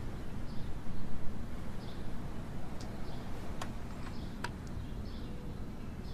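Low steady ambient rumble with faint, short bird chirps recurring about once a second, and a few sharp clicks.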